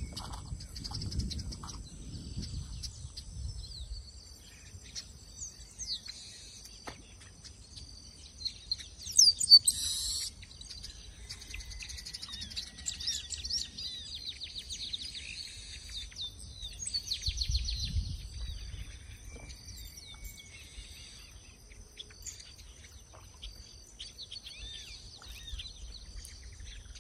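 Birds chirping and calling outdoors, many short calls, over a steady high-pitched whine; a sharp, loud call about nine seconds in is the loudest sound.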